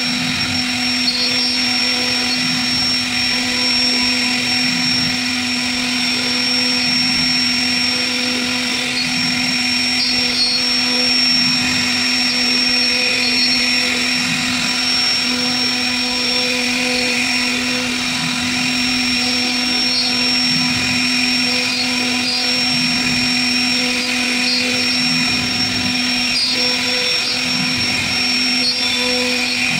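CNC router spindle running with a steady whine as its small bit cuts carved grooves into a wooden door panel.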